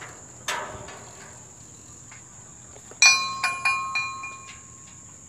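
The steel frame and pulleys of a power-line spacer cart clank and ring as the cart is hoisted on a rope. There is one knock about half a second in. About three seconds in comes a quick run of four or five ringing metallic clinks. Under it all runs a steady high insect buzz.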